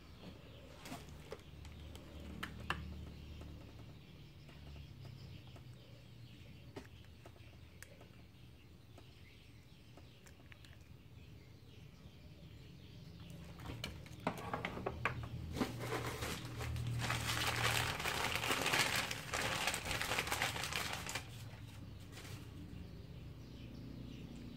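Hands handling plastic action figures: scattered light clicks and taps as the figures are moved and posed, then a loud crinkling rustle from about 14 to 21 seconds in.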